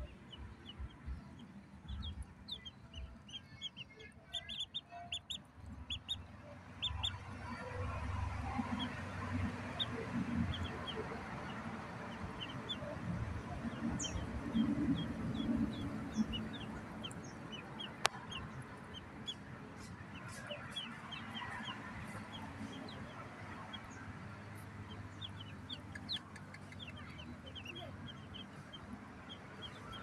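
A flock of ducklings peeping, many short high peeps overlapping throughout. A low rumbling noise swells through the middle, and there is a single sharp click a little past halfway.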